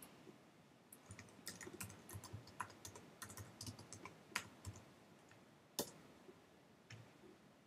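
Faint, irregular clicks of typing on a computer keyboard, with a couple of sharper key clicks in the second half.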